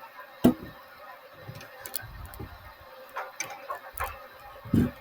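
Kitchen things being handled: a sharp knock about half a second in, a scatter of light clicks and taps, and a duller thump near the end.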